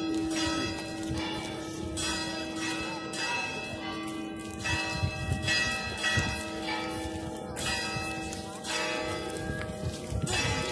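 Church bells being struck about once a second at uneven intervals, each stroke leaving a long ringing tone that overlaps the next.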